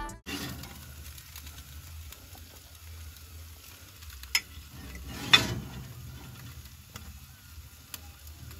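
A metal fork prodding potato slices in a glass baking dish on an oven rack: light scraping, with a sharp clink a little over four seconds in and a louder clink about a second later. A steady low hum runs underneath.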